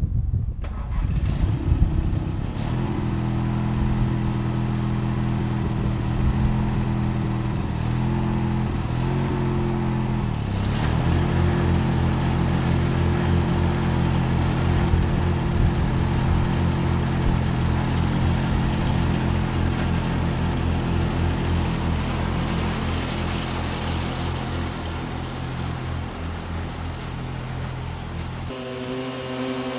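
Ride-on lawn mower engine running steadily, its note dipping briefly twice in the first half. Near the end it changes abruptly to a higher, louder note.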